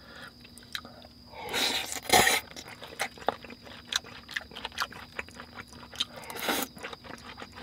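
A person chewing a mouthful of raw beef tartare with abalone and pear close to the microphone: many small wet mouth clicks and crunches, with two louder stretches of noise about two seconds in and near six and a half seconds.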